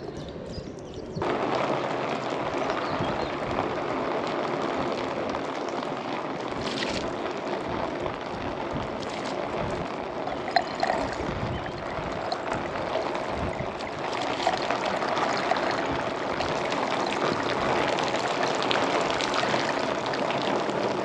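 Water poured from a bucket onto a gelcoated fibreglass boat roof, running across it and down a round roof drain. A steady flow that starts about a second in and keeps going.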